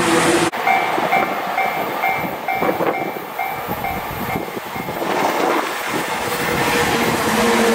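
A railway level-crossing alarm rings in evenly repeated electronic dings, about two or three a second, after an abrupt cut about half a second in. From about five seconds the running noise of an approaching JR 185 series electric train grows louder, with a steady low hum near the end.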